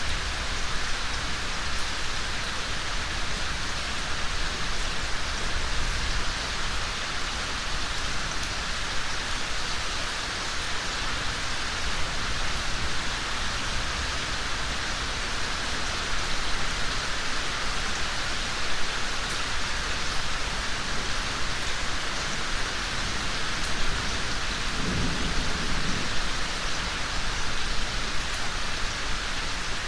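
Steady rain falling with an even hiss. A low rumble sits under it near the start and swells again briefly about 25 seconds in.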